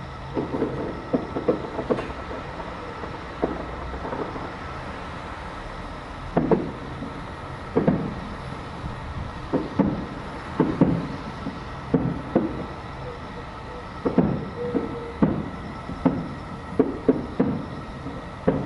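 Distant aerial firework shells bursting: an irregular run of muffled booms, several coming in quick clusters, over a steady background hum.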